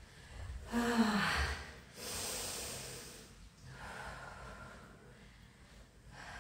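A woman breathing hard from exertion during a floor bridge exercise, with long breathy exhales and a short voiced grunt about a second in.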